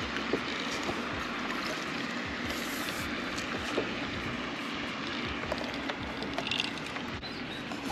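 Water splashing and trickling as a hooked largemouth bass is fought at the surface and lifted out of the pond, over a steady even rush of noise.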